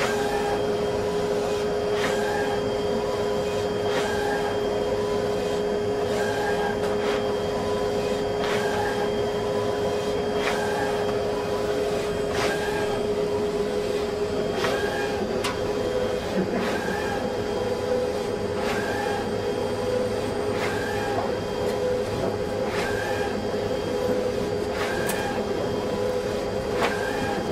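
HP large-format inkjet plotter printing a line drawing on roll paper: a steady mechanical hum with a constant tone, and a sharp click with a short higher note roughly every two seconds as the printhead carriage sweeps across and reverses.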